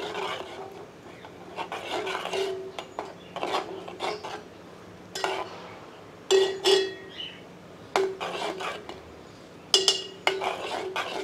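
Steel ladle stirring a thin yogurt gravy in a metal pot, scraping bottom and sides in repeated strokes about once a second, with two sharper clinks of ladle on pot that ring briefly. The stirring is kept up so the yogurt does not curdle while the gravy comes to a boil.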